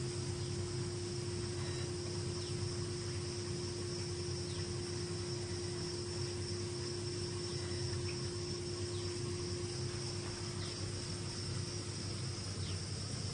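Steady insect chirring throughout, with a steady low hum underneath and a few faint short chirps.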